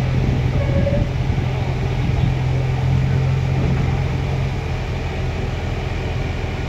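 Heavy diesel machinery engine running at a steady speed, with a strong low hum that eases off about four and a half seconds in.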